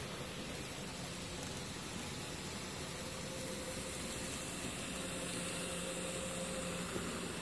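Small electric motor of an N-scale model locomotive running on the layout: a steady hiss with a faint, even hum and no distinct clicks.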